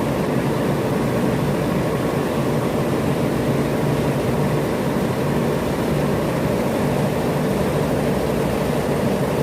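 Refrigeration plant machinery running with a loud, steady mechanical hum and rush.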